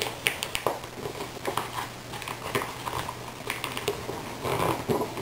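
A sheet of A4 paper being creased and pressed into a sink fold by hand: irregular small crisp crackles and rustles as the layers are pushed and flattened, over a faint steady low hum.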